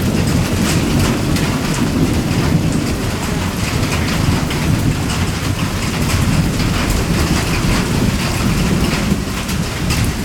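Steady heavy rain coming down, with a dense patter of sharp drop hits over a constant low rush.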